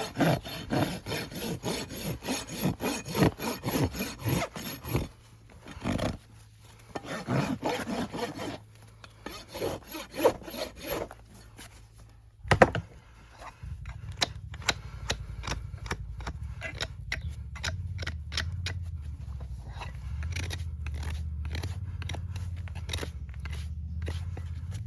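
A hoof rasp filing a horse's hoof in quick back-and-forth strokes, in three runs with short pauses between them. A single sharp knock comes about halfway through. After it a low steady hum sets in, with scattered clicks.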